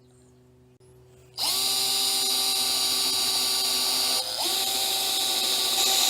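Power drill-driver starting up about a second and a half in and running at a steady whine while driving screws to fasten a sandwich of blast-gate layers together. Near the middle it briefly slows and picks back up to speed.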